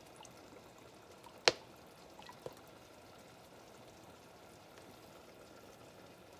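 Cooking oil poured from a plastic bottle into an empty frying pan: a faint, steady trickle. One sharp click about a second and a half in, and a softer one a second later.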